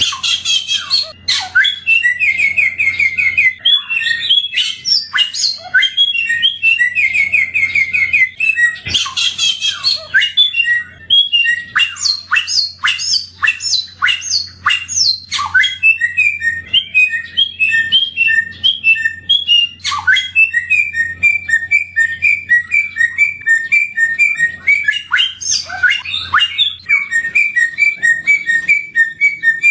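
A songbird sold to Indonesian bird-keepers as the 'samyong' sings a continuous, varied song. It mixes fast trills, quick repeated whistled notes and sharp sweeping calls, with a faint low hum underneath.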